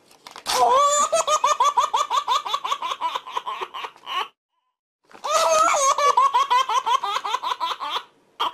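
High-pitched, childlike laughter: two long fits of rapid giggling, the second starting about five seconds in after a short pause.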